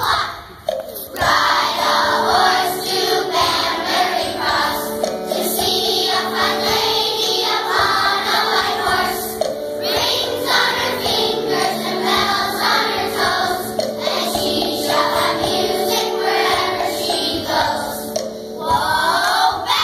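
A choir of young children singing a song over held instrumental accompaniment, with a short break near the end.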